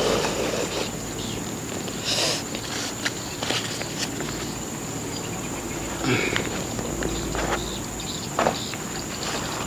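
Paper wrapper of a rice packet rustling and crinkling in short bursts as it is handled and opened, over an insect's steady high-pitched drone.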